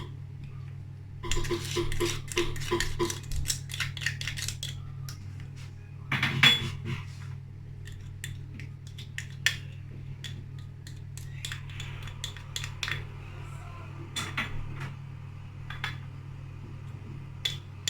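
A utensil stirring lemon-cream mixture in a saucepan on the stove, clinking and scraping against the pan. A quick run of strokes comes about a second in, then scattered single knocks, over a steady low hum.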